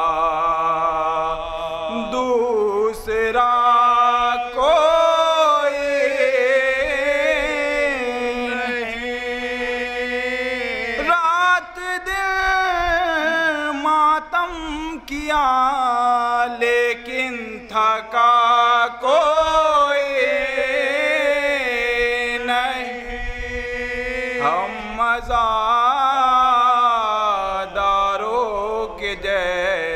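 Male voice chanting an Urdu Shia devotional poem for Imam Husain, unaccompanied and amplified through a microphone. The melody is slow and ornamented, with long held notes and short breaths between lines.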